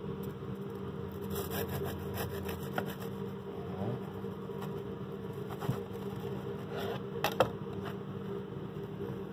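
A serrated knife saws through a toasted club sandwich, and the crisp bread rasps in short scrapes. A couple of sharp knocks come about seven seconds in, over a steady background hum.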